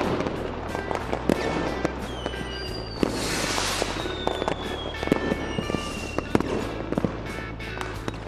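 Fireworks sound effect: repeated bangs and pops, a burst of crackle a few seconds in, and thin whistles that fall slowly in pitch, over background music with steady low notes.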